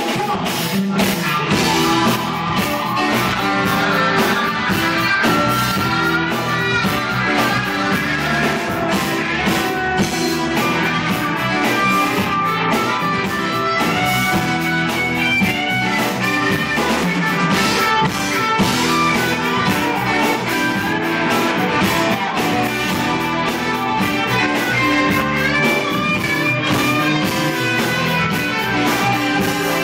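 Live rock band playing: electric guitars over bass, drum kit and keyboards, with a steady beat and no pause.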